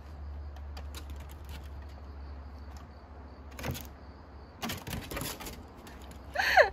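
Small dogs' claws clicking and scrabbling on a wooden deck as the two dogs meet and move around each other, with a brief high-pitched call, falling in pitch, near the end.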